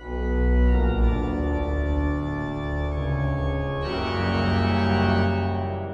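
Background music of sustained organ chords, moving to a new chord about four seconds in.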